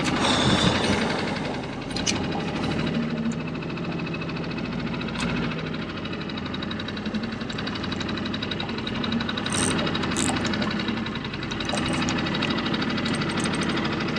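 Boat's outboard motor running steadily, a continuous hum with a fast, even pulse.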